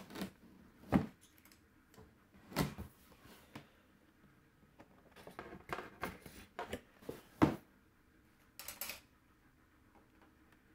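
Handling noises from a cardboard box being moved and turned: scattered sharp knocks and clicks, the loudest about one second in and near the middle, and a brief scraping rustle near the end.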